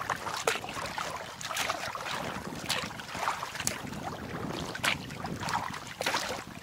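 Water splashing and lapping around a paddled recreational kayak on choppy water, with sharp irregular slaps of small waves and paddle strokes over steady wind noise on the microphone.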